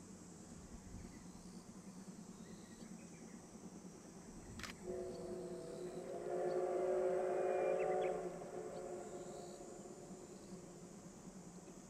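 C57 steam locomotive's whistle sounding once for about four seconds, a steady chord of several tones starting about five seconds in, just after a sharp click.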